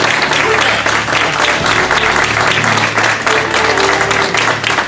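Audience applauding, many hands clapping steadily, with instrumental music playing underneath.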